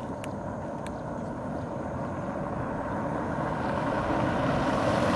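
A motor vehicle running with engine and road noise, growing steadily louder, with a couple of faint clicks near the start.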